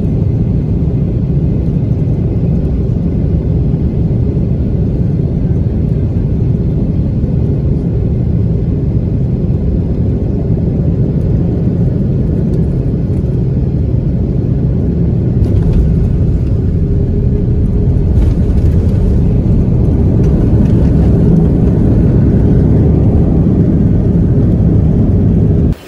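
Steady, loud low rumble inside a jet airliner's cabin over the wing as it rolls along the runway and taxis after landing, engines running and wheels on the pavement. It grows a little louder in the second half.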